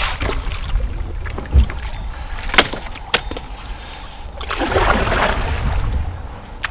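Kayak being paddled on a river: water splashing and rushing from the paddle strokes, with a few sharp knocks of the paddle against the hull. A low rumble sits underneath.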